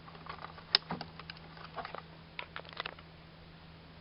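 Small sharp clicks and scrapes of an automotive plastic electrical connector's sliding lock being pried back with a screwdriver, with one loud click a little under a second in and a quick run of clicks toward the end.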